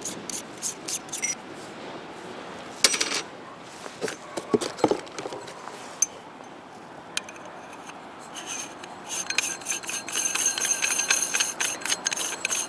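Metal parts of a Discovery riflescope being handled: a few sharp clicks and knocks as the metal retaining ring is unscrewed from the objective and set down, then from about nine seconds in a dense scratchy rasping as the sunshade is screwed onto the objective's threads.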